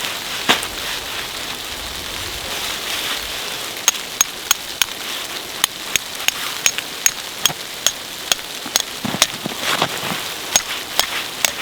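A steady hiss like light rain. From about four seconds in, it is joined by a regular series of sharp, light taps, about two or three a second.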